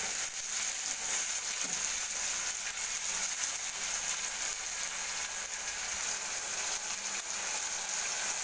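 Sliced onions, tomatoes and curry leaves sizzling steadily in hot oil in a stainless-steel kadai as they are stirred and sautéed.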